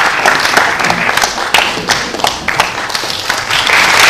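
Audience applauding, a dense wash of hand claps with single claps standing out; the applause eases off in the middle and swells again near the end.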